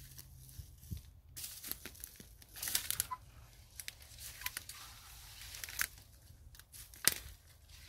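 Dry bamboo leaf litter and dead bamboo culms crunching and crackling irregularly underfoot and against the body as someone pushes through a dense bamboo grove, with a sharp crack near the end.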